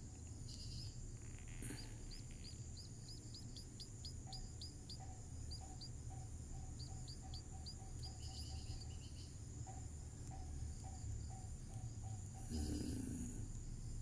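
Small birds chirping: runs of short, high, falling chirps a few times a second, pausing briefly near the middle, over a steady high drone of crickets. There are brief rustles of handling once early on and again near the end.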